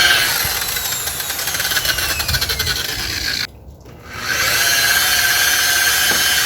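Electric polisher running with its pad on a plastic headlight lens, buffing it with metal polish. It cuts out about three and a half seconds in and starts up again less than a second later.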